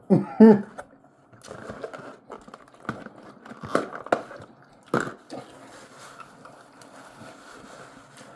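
Close-miked chewing and mouth sounds of someone eating a loaded baked potato, with a few sharp clicks about three to five seconds in.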